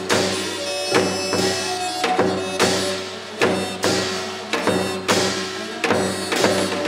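Korean shaman-ritual (gut) accompaniment music: loud percussion strikes with a ringing, cymbal-like tail fall in uneven pairs about every half to one second, under a melody of long held notes.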